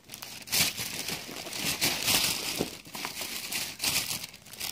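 Thin plastic bag crinkling in irregular bursts as it is handled, with the packaged bread inside.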